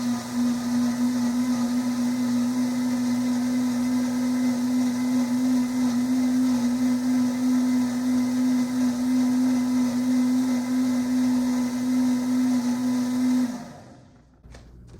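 Countertop blender running steadily at full speed, puréeing a full jar of tomatoes, watermelon, bread and vegetables into gazpacho, with an even motor hum. Near the end the motor is switched off and winds down, followed by a couple of light clicks.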